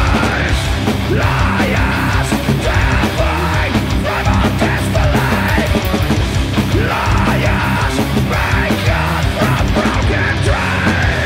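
A doom metal band playing live: heavily distorted electric guitars and bass over drums and cymbals, loud and unbroken.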